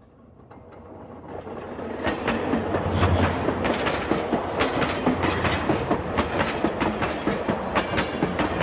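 Model train running on the layout's track, a steady rumble with a run of clicks as the wheels pass over the rail joints. It fades in over the first two seconds.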